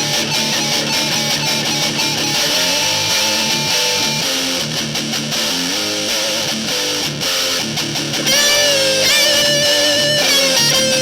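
Instrumental metal music on distorted electric guitars, with no drums. About eight seconds in it grows louder as a high lead melody of held, bending notes comes in over the chords.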